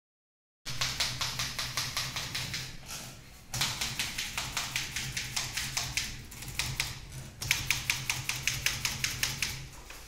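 Old manual typewriter being typed on quickly, its keys striking in rapid runs of about five a second, with a short lull about three seconds in. It starts after a brief silence at the beginning.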